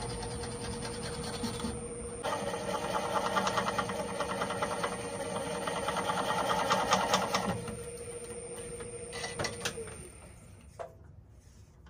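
Wood lathe running slow with a steady motor hum and a faint high whine while a bowl gouge cuts the small nub off the spinning oak. The cut scrapes with rapid, regular ticking for several seconds in the middle. Near the end the lathe is switched off with a click and the hum stops.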